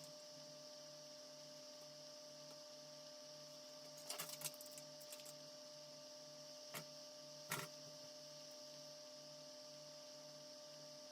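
Faint steady electrical hum with a slow pulse about twice a second, broken by a few light clicks and taps around the middle.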